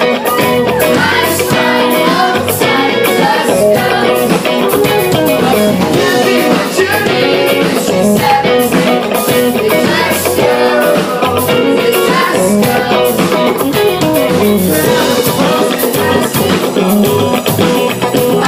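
Live pop-rock band playing a song with singing, guitars and drums, loud and continuous.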